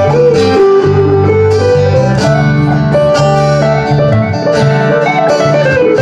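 Acoustic string music: a guitar playing held low notes under a melody line that slides between pitches.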